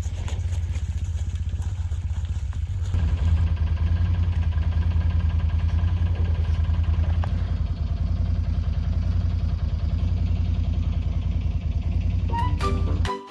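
ATV engine running steadily, getting louder about three seconds in. Music begins just before the end.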